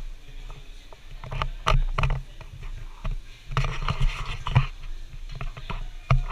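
Scattered light knocks and scrapes of a spray-paint artist's materials being handled on his painting board: paper pressed and moved over the board, cans and tools set down.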